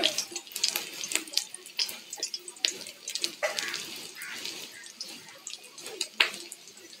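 Fish roe fritters sizzling and crackling in hot mustard oil, with irregular sharp pops, while a metal spatula scrapes the wok and turns them over.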